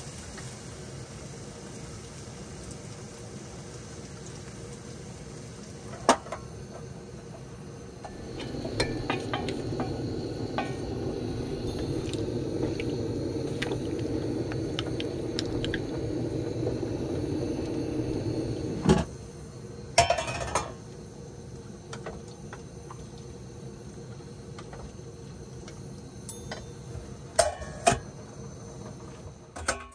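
Pots, pans and utensils clinking and scraping while food cooks on a two-burner camp stove, over a steady sizzle. A louder steady rush lasts about ten seconds in the middle, and a few sharp clinks come near the end.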